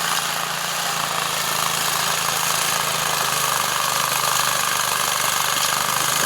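Stump grinder's engine running steadily.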